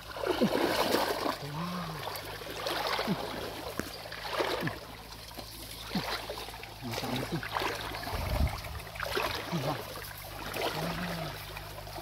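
Shallow stream water splashing and sloshing in irregular swishes as hands move through it, with a dull low thump about two-thirds of the way in.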